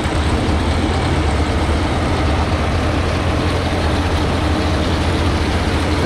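Tractor engine and PTO-driven New Holland 848 round baler running together as a bale forms in the chamber: a steady low drone with an even mechanical hiss over it.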